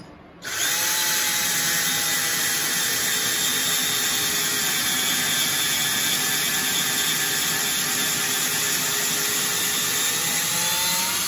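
Cordless drill running steadily, driving a valve guide burnishing tool through a valve guide in a Buick 350 cylinder head to open up a guide that is too tight for the valve. The motor starts about half a second in, and its pitch rises slightly in the last second before it stops.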